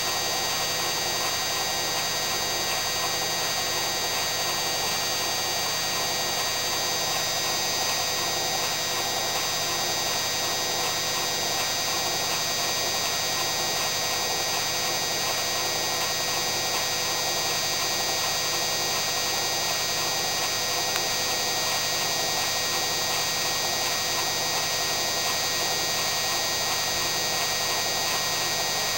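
Hoover Inter@ct washing machine running steadily, most likely spinning fast, its drum and a motor transplanted from a Candy Alisè making a constant mechanical whine and hum with no knocks or surges.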